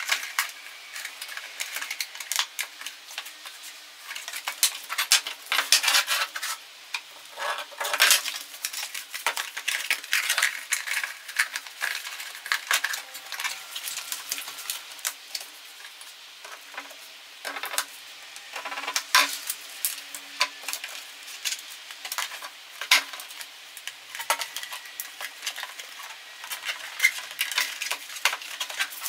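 Stiff translucent plastic sheets being handled, flexed and set down on a wooden workbench: irregular clicks, crackles and rustles, over a faint steady hum.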